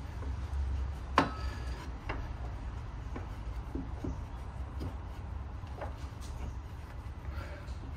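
Metal clicks and knocks as an Endless MONO6 monoblock racing brake caliper is worked loose off the brake disc by hand. There is one sharp click about a second in and a few fainter knocks after it, over a low steady hum.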